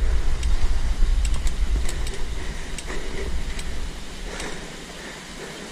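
Deep rumble of wind and handling noise on a mountain biker's camera microphone, with scattered clicks and rattles from the bicycle on a stony uphill trail. The rumble dies away about four seconds in.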